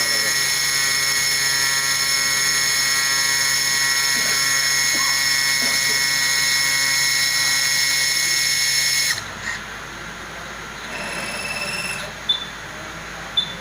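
High-speed spindle of a jewellery CNC bangle-cutting machine running with a steady high-pitched whine, stopping abruptly about nine seconds in. Two short high beeps follow near the end.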